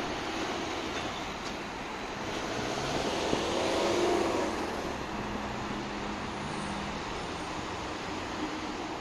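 Steady traffic noise from a busy multi-lane city avenue. One vehicle passes close, growing louder to a peak about four seconds in and then fading.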